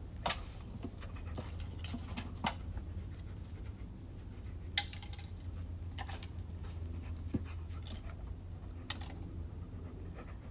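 A dog panting, with about half a dozen sharp clicks or taps scattered through.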